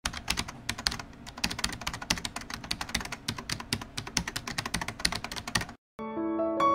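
Rapid computer-keyboard typing, about nine keystrokes a second, that stops suddenly near the end. Soft piano music begins just after it.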